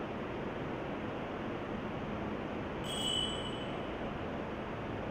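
Steady background hiss with no speech, and a brief faint high ring about three seconds in.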